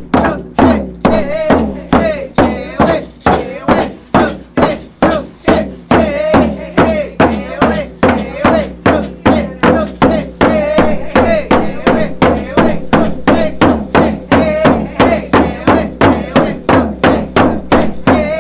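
Tlingit singers chanting a traditional song together over steady unison beats on hide hand drums, about three beats a second.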